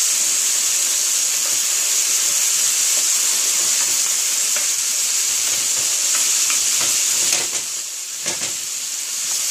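Diced onions and celery sizzling steadily in a frying pan, stirred with a wooden spatula that scrapes and clicks against the pan. Near the end the sizzle drops and there are two sharp knocks.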